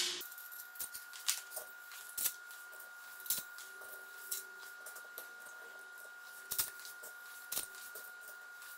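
Faint, scattered light clicks and knocks at uneven spacing, over a faint steady high-pitched tone.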